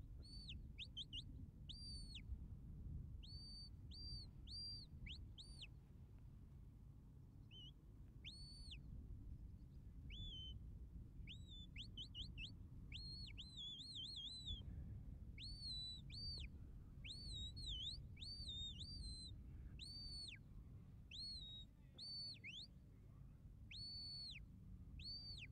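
A handler's shepherd's whistle giving a long series of commands to two sheepdogs working sheep: short high whistled calls, some held flat and dropping at the end, others quick upward flicks and warbling trills. A steady low rumble runs underneath.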